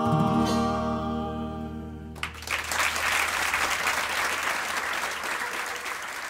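The last sung chord of a live folk song is held and fades away. About two seconds in, an audience breaks into applause, which carries on steadily.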